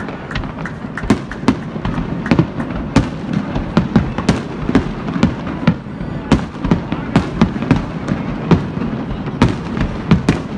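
Fireworks display: aerial shells bursting in a rapid, uneven string of sharp bangs, a few every second, over a steady background rumble.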